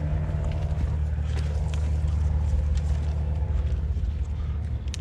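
A running engine's steady low drone, with a few light clicks of parts being handled.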